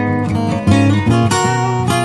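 Background music led by strummed acoustic guitar, with fresh strums about two-thirds of a second in and again past the middle.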